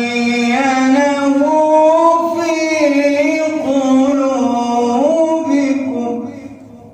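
A man reciting the Quran in melodic tajweed style, drawing out long chanted phrases with ornamented turns of pitch. The voice trails off near the end.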